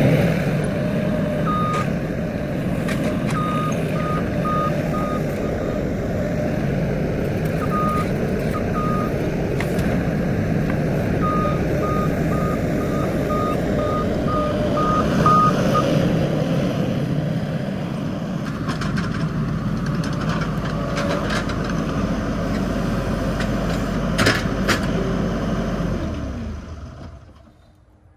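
Skid steer loader engine running steadily under work, with its reversing alarm beeping in several short runs of high single-tone beeps, and a few knocks near the end before the engine dies away.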